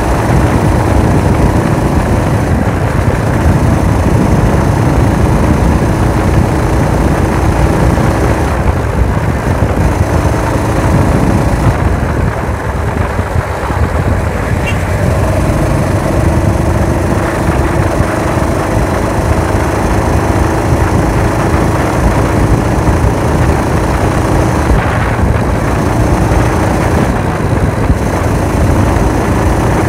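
Small gasoline engine of a motorized chopper bicycle running steadily under way through its fiber-packed muffler, with wind rushing over the handlebar camera. The engine note eases slightly about twelve seconds in, then steadies again.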